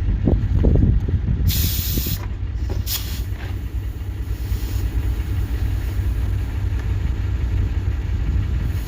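Compressed air hissing in a burst lasting under a second about one and a half seconds in, then briefly again near three seconds, as air is fed into a truck's rear air suspension bags, over a steady low rumble.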